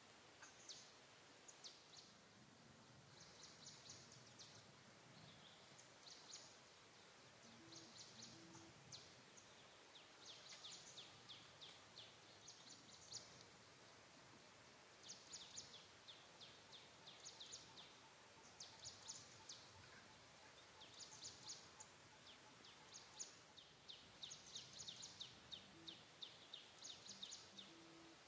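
Quiet outdoor ambience with short bursts of rapid, high-pitched chirps, repeating every second or two.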